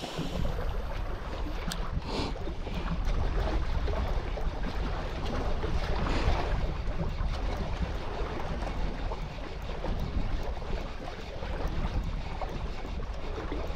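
Wind noise on the microphone over the steady wash of small sea waves against a rocky shore.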